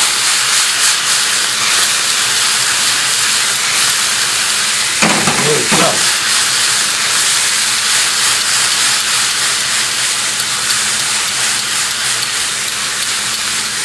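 Bell peppers and chopped capers sizzling steadily in a hot pan of oil with red wine vinegar, the liquid boiling down to reduce.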